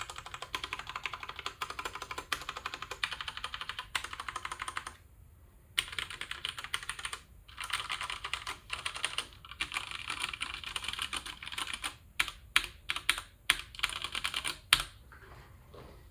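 Typing on a Ducky One 2 TKL mechanical keyboard with stock, unmodified Cherry MX Brown tactile switches: a fast, continuous run of keystrokes with a short pause about five seconds in. From about twelve seconds in, slower, separate and louder key presses, which stop about a second before the end.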